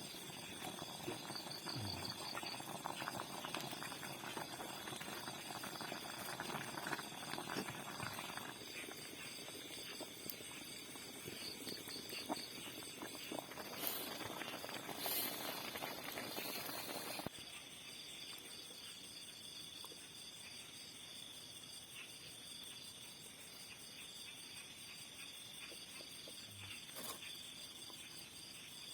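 Crickets chirping in a steady pulsing chorus, with scattered clicks and rustling of handling or movement in the first half that stop abruptly partway through.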